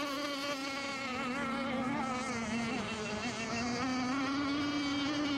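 Radio-controlled racing boats running on the water, their small engines making a high, steady buzz that wavers slightly in pitch as the boats run their last lap.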